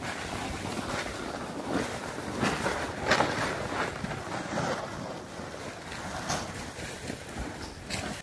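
Snowshoe footsteps crunching in deep snow as a hiker walks past, with a steady hiss of a loaded gear sled being dragged over the snow behind her. The crunches come in an uneven rhythm, loudest about three seconds in.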